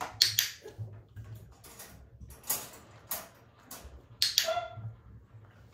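Wire dog crate rattling and clanking as a puppy moves about inside it: a string of short, separate clatters, the loudest about four seconds in.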